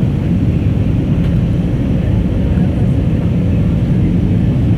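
Steady low roar of an Airbus A320neo's cabin noise in flight, engine and airflow noise heard from inside the cabin.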